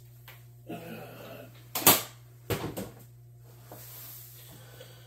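Handling knocks on a workbench: one sharp knock about two seconds in, the loudest sound, then a shorter clatter about half a second later.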